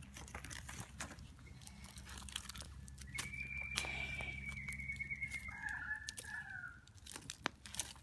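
Campfire of sticks crackling as a stick pokes and shifts the burning wood, with scattered snaps and clicks. About three seconds in, a bird gives one long drawn-out call that sinks slightly in pitch, then drops lower before stopping near seven seconds.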